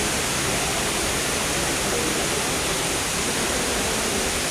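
Man-made indoor waterfall: water pouring down in a steady rush, an even hiss with no breaks.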